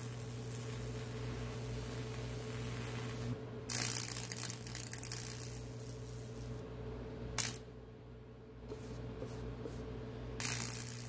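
High-voltage electric arc crackling and sizzling as it burns a Lichtenberg figure into wood, over a steady electrical hum. The arcing breaks off briefly about three and a half seconds in, then dies down after about six and a half seconds apart from one short sharp crack, and flares up again near the end.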